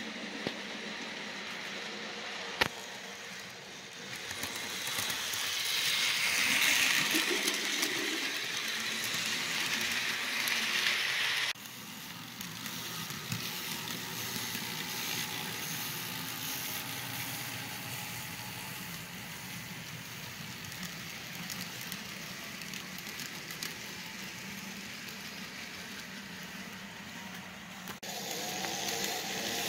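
Model trains running on the layout's track: a steady motor hum and wheel-on-rail rattle, louder while a train passes close between about 4 and 11 seconds in, with a single sharp click early on. The sound changes abruptly about 11 seconds in and again near the end.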